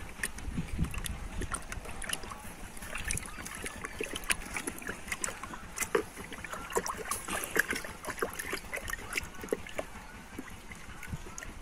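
Scattered small clicks and rustles of a plastic insecticide bottle and measuring cup being handled and uncapped, over a steady low rumble of wind on the microphone.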